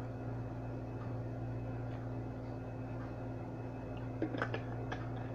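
Steady low hum of room tone, with a few light clicks a little after four seconds in.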